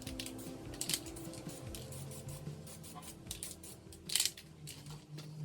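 Short hisses from an aerosol spray-paint can, a few separate bursts, as a coat of paint goes on, with small clicks between them. Faint background music runs underneath.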